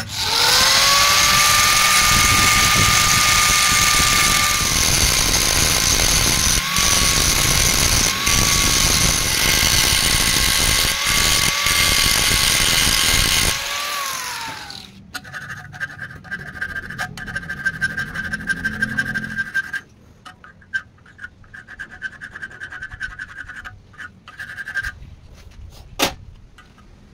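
Angle grinder spinning up and grinding the end of a steel threaded rod to a bevelled tip. It winds down about 14 seconds in. A fainter steady whine with rapid ticking follows, with one sharp click near the end.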